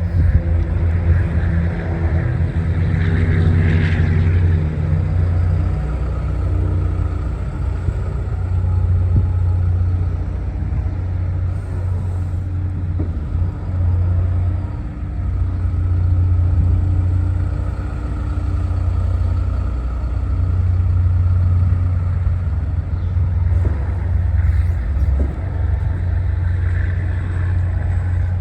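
Diesel engine of a Case CX245D SR excavator running, a steady low drone whose level swells and eases every few seconds.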